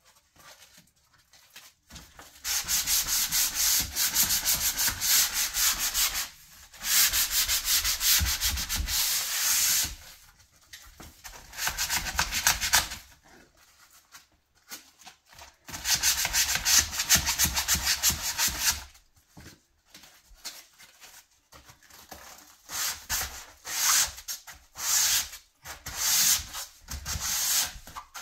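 Sandpaper rubbed by hand along a painted wooden cabinet-door frame, a dry scratchy sanding sound. Long runs of continuous strokes with short pauses between them give way, in the last third, to shorter separate strokes.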